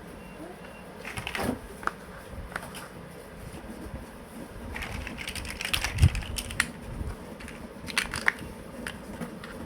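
Plastic building blocks being handled: scattered sharp clicks and knocks as pieces are picked up, set down and pressed together, with short stretches of rustling clatter.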